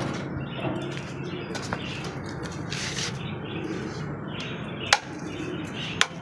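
Chickens feeding, with faint bird chirps in the background and two sharp clicks, one about five seconds in and one near the end.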